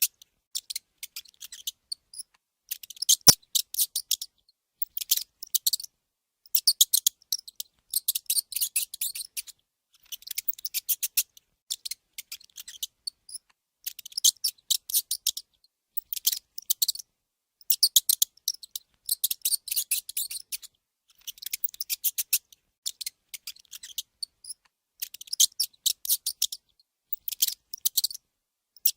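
Mouse sounds: repeated short bursts of rapid, high-pitched squeaking and chittering clicks, each lasting about a second, with brief pauses between them.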